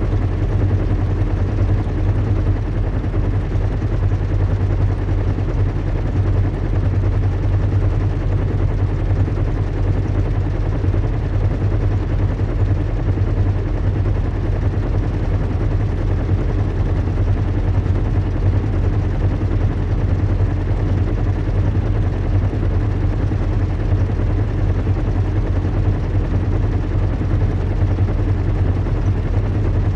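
Recreated airship-in-flight ambience: the low, steady hum and rumble of a zeppelin's engines, unchanging throughout, with a faint higher tone riding over a deep drone.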